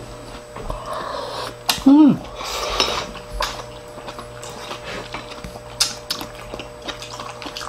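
Chopsticks and spoons clicking and tapping against ceramic bowls and plates during a meal, in scattered short knocks. About two seconds in there is a brief vocal sound from one of the diners, the loudest moment.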